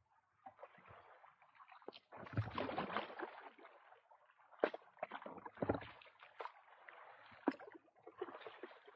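Water lapping and sloshing against a small boat's hull in uneven swells, with several sharp knocks of the hull or gear about two, four and a half, five and a half and seven and a half seconds in.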